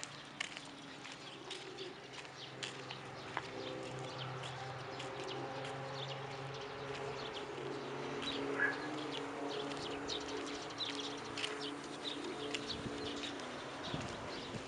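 Scuffing footsteps of sandals and a small dog's paws on a gravel road, with birds calling in the background.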